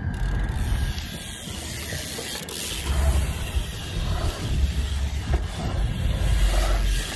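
BMX bike rolling over skatepark concrete, with the clicking of a coasting freewheel hub and wind rumbling on the phone's microphone, heaviest about three seconds in and again near the end.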